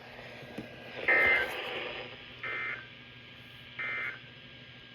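Three short bursts of warbling EAS/SAME data tones from a weather radio's speaker, spaced a little over a second apart: the end-of-message code that closes an emergency alert broadcast.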